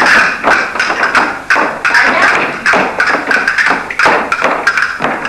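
Castanets clicking and dance shoes tapping and stamping on a wooden floor during a Spanish dance, with music behind.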